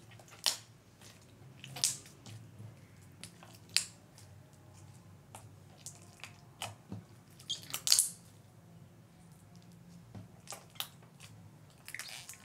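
Clear slime mixed with clay being squeezed and kneaded by hand, giving irregular sharp clicks and pops a second or two apart, with a quick crackling cluster, the loudest, about eight seconds in.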